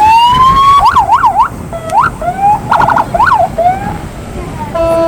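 Police siren sounding close by: a rising wail, then rapid up-and-down yelps, with a short steady horn tone near the end.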